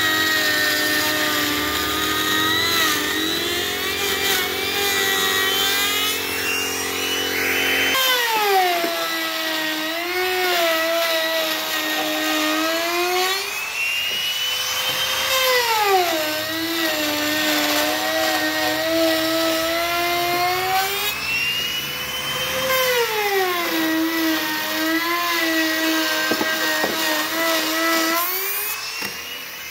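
Handheld electric trim router running and cutting into wooden slats, its motor whine sagging in pitch as the bit takes load and climbing back as it eases off, several times over.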